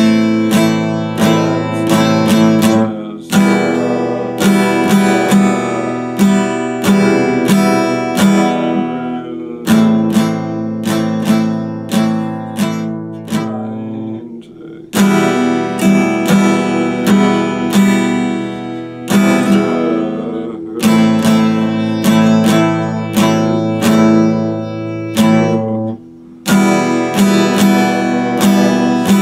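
Epiphone acoustic guitar played without singing: picked and strummed chords in a pattern that repeats about every eleven seconds, each pass ending in a short pause.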